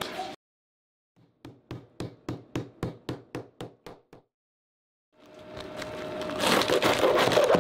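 A rolling pin beats plastic-wrapped pork belly slices on a cutting board to flatten them paper-thin: about a dozen even knocks, three or four a second. Near the end comes a louder crisp rustling and crackling as a head of napa cabbage is handled.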